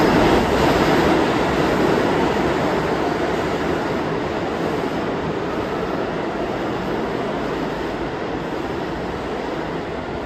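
Subway train rumbling in the station, a steady noise that slowly fades.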